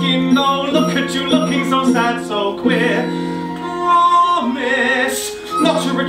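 Live musical-theatre band playing the score's accompaniment, with held notes and a wavering sustained note near the middle.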